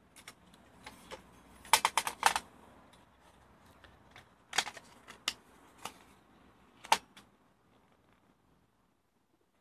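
Sharp clicks and knocks from a TV power supply circuit board being handled and turned over, its board and metal heatsinks tapping against the surface it rests on. A quick cluster of loud clicks comes about two seconds in, followed by single clicks spaced about half a second to a second apart, ending about seven seconds in.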